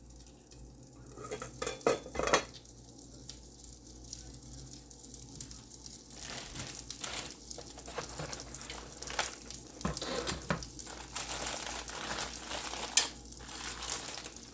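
Cookware and a utensil clinking and clattering against a skillet while sliced potato rounds sizzle in oil. A few sharp clinks come about two seconds in, and the sizzling hiss with frequent clatter grows through the second half.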